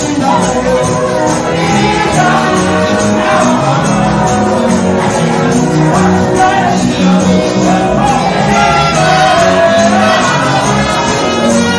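A girl and a young man singing a gospel duet into microphones over backing music.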